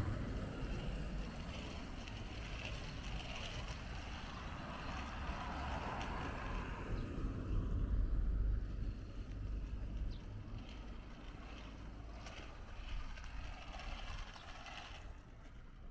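Street ambience: a steady low rumble of road traffic with wind on the microphone, swelling about eight seconds in and fading toward the end.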